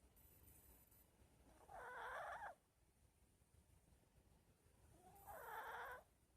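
A sleeping pet snoring quietly: two snores about three and a half seconds apart, each lasting under a second, with near silence between them.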